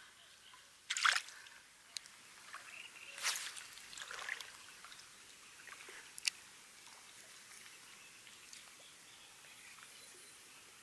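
Faint splashing and dripping of lake water, with a few short splashes about one, three and four seconds in and a sharp click about six seconds in.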